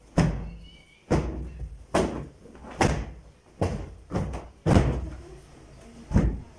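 Repeated dull thumps, roughly one a second and slightly irregular, each ringing briefly in the room: sofa cushions being pushed, dropped and patted into place as their covers go on.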